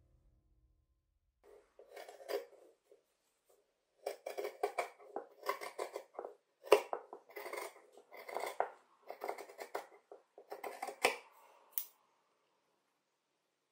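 Large dressmaker's shears cutting through layered fabric: a run of repeated snips, one or two a second, stopping near the end with a short sharp click.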